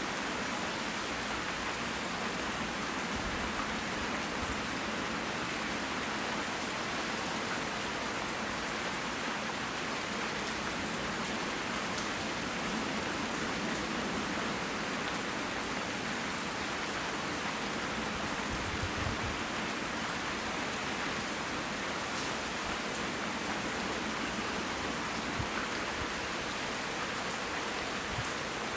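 Steady rain falling in a constant hiss, with a few louder single drops tapping here and there.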